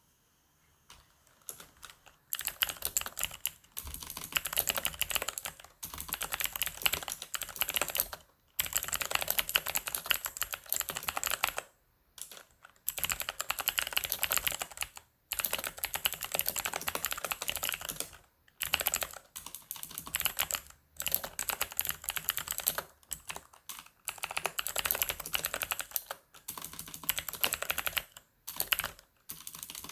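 Corsair K70 mechanical keyboard with clicky blue switches being typed on quickly, in bursts of a few seconds with short pauses between them.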